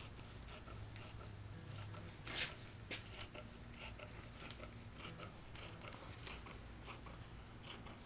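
Scissors cutting through thin plastic vacuum-bagging film: faint, scattered snips and crinkles, with one louder snip about two and a half seconds in, over a low steady hum.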